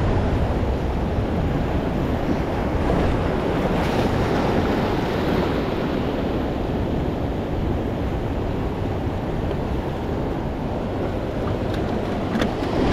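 Big ocean surf breaking and washing over the rocks of a jetty, a steady rushing wash of water, with wind on the microphone.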